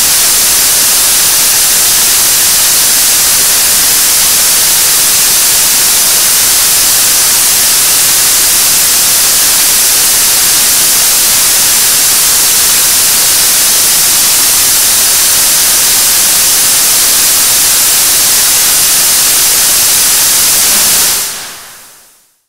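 KSLV-II (Nuri) third-stage 7-tonne-class liquid-propellant rocket engine firing: a loud, steady rush of exhaust noise, heavy in the hiss. It fades away about a second and a half before the end.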